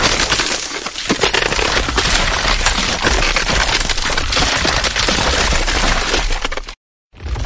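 Ice cracking: a dense, continuous run of sharp crackles and snaps over a low rumble. It cuts off abruptly near the end and starts again after a brief silence.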